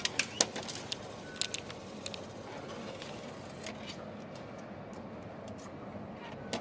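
Small sharp clicks and clinks of coins being scooped out of the metal return tray of a metro ticket vending machine, mostly in the first two seconds, over a steady low hum.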